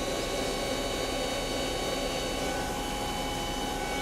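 Star SV32J CNC Swiss lathe's live (power-driven) tool spinning at a steady 1,500 RPM: an even machine hum with a few steady whining tones.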